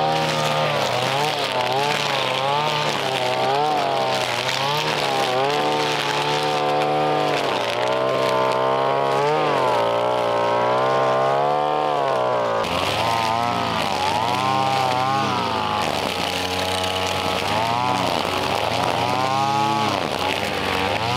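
Petrol brush cutter's small engine running hard while it cuts grass and weeds. Its pitch rises and falls over and over as the cutting load and throttle change.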